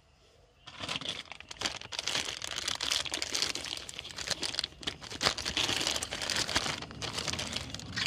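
Clear plastic packaging bag crinkling and rustling as a new suspension drop link is pulled out of it. It starts about a second in and goes on as a dense, crackly rustle.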